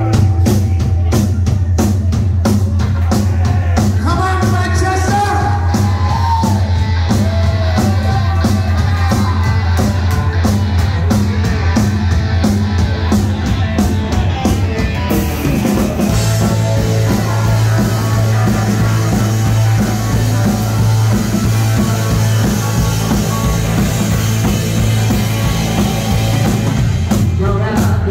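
Rock band playing live, heard from the crowd: electric guitars, bass, a pounding drum kit and a singer. About halfway through, the drums open into a steady cymbal wash and the bass changes note.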